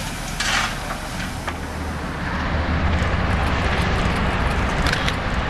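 Double-headed steam train, SNCF 241.A.65 and 241.P.17 4-8-2 locomotives, approaching. Its low rumble and exhaust grow louder from about two seconds in.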